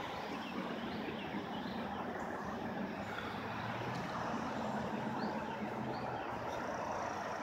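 Steady hum of road traffic, with a few faint short high chirps now and then.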